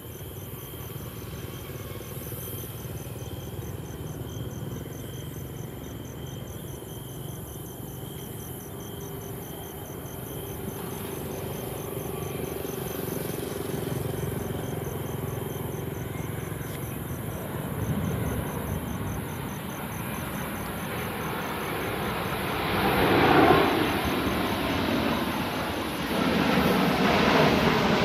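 Boeing 787-9 airliner on final approach, its twin jet engines growing from a distant rumble to loud as it comes overhead, with a sweeping whoosh as it passes. Insects chirp in a fast, steady pulse until the jet drowns them out about three-quarters of the way through.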